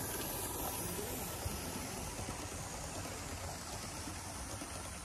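Gauge 1 live steam model locomotive and its coaches running past: a steady hiss of steam with the rumble of metal wheels on the track.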